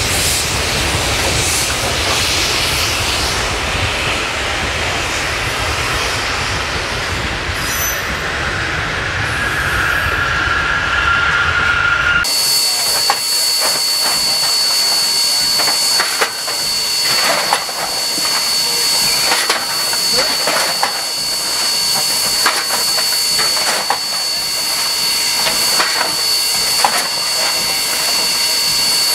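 Freight train rolling past, its wheels rumbling and clattering on the rails, with a wheel squeal in the seconds before a sudden cut. Then steady steam hiss inside a steam locomotive's cab, with sharp clanks and scrapes from the coal shovel at the firebox.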